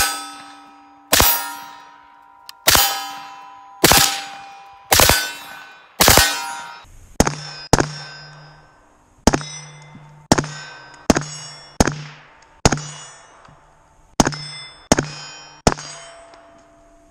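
Suppressed 5.56 AR-15 with a 10.5-inch barrel fired about fifteen times at an unhurried pace. Each shot is followed by a metallic ring from hit steel targets that fades over about a second.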